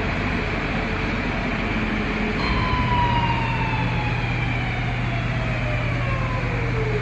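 Blanchard 72HD-120 rotary surface grinder running with a steady machine noise. About two and a half seconds in, a whine begins and falls steadily in pitch as the grinding-wheel spindle coasts down after being shut off.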